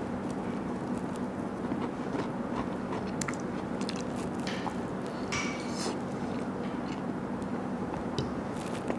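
A person biting into and chewing grilled mackerel teriyaki skewer pieces, with scattered short clicks and mouth smacks, over a steady low room hum.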